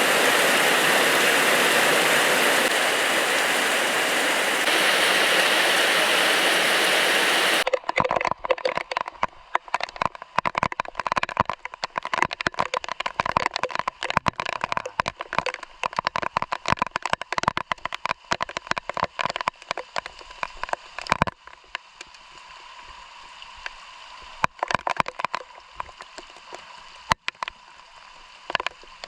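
Rain: for the first several seconds a dense, steady hiss of heavy rainfall, which cuts off abruptly. It gives way to a close patter of separate raindrops ticking sharply, which thins out about three-quarters of the way through.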